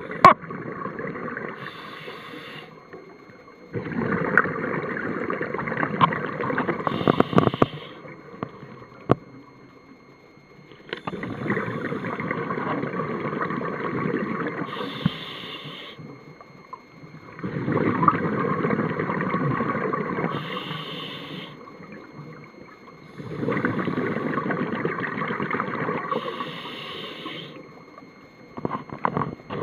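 Scuba diver breathing through a regulator underwater: a rush of exhaled bubbles about every six seconds, each lasting a few seconds and ending with a short higher hiss, with quieter pauses between breaths.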